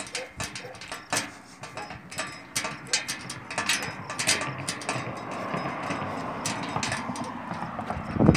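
A key jiggling and clicking in a stuck lock on a metal water-access cover: short metallic clicks and rattles as the key is worked but won't turn. A steady rushing noise rises in the second half, and a sharp thump lands at the very end.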